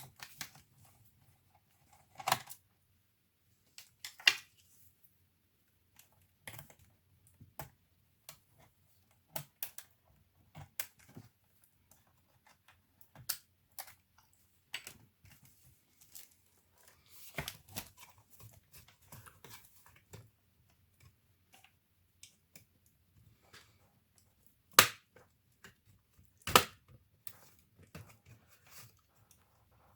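Scattered clicks, taps and light knocks of small tools and plastic laptop parts being handled during disassembly, irregular throughout. Two sharp clicks near the end are the loudest.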